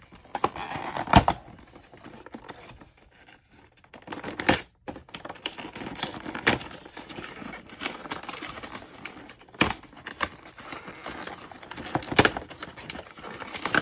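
A cardboard-and-plastic trading-card collection box being handled and pried open by hand: crinkling plastic and rustling cardboard, with sharp snaps and clicks every few seconds.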